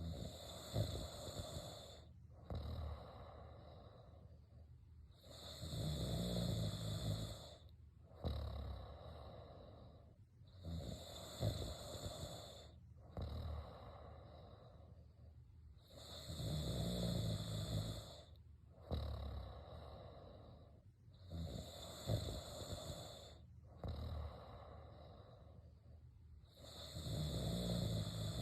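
Snoring in sleep, in a steady rhythm: a loud snore roughly every five to six seconds, with quieter breaths in between.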